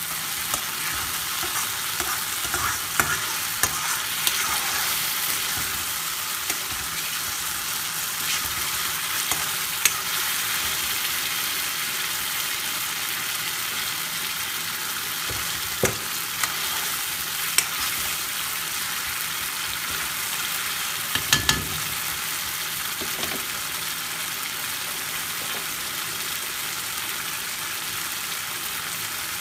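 Thick curry sauce sizzling steadily as it cooks down in a karahi, with a metal spoon now and then scraping and knocking against the pan in sharp clicks, including a quick double knock about two-thirds through.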